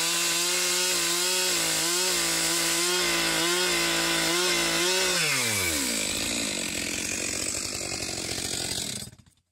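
Stihl two-stroke chainsaw at full throttle, crosscutting through a cedar beam, its engine note steady under load. About five seconds in, the throttle is released and the revs fall away to a lower running sound, which cuts off suddenly near the end.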